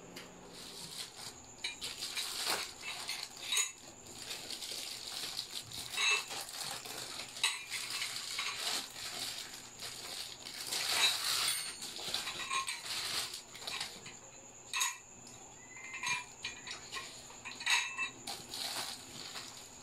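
Plastic wrapping crinkling and rustling as punching-ball parts are unwrapped and handled, with scattered light clicks and metallic clinks from the parts.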